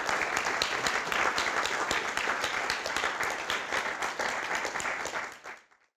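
Audience applauding, many hands clapping, which dies away near the end.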